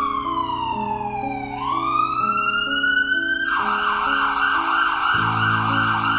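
A siren wails slowly down in pitch and back up, then about three and a half seconds in switches to a fast warble. It plays over background music with steady low notes.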